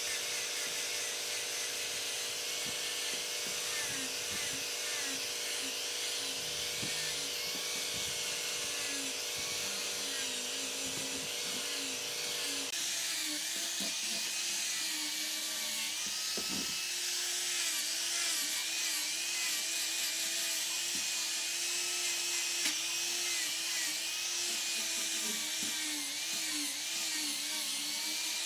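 A small high-speed electric power tool running continuously on wood, its motor whine wavering up and down with the load, over a steady high hiss.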